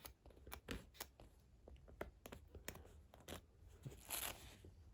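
Faint, irregular clicks and scratches of an X-Acto knife blade prying under velcro hooks to lift out lint, with a brief louder rustle about four seconds in.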